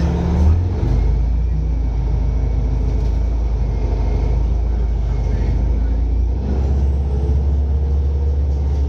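City bus running along the road, heard from inside the cabin: a steady low engine and road rumble whose note shifts about six and a half seconds in.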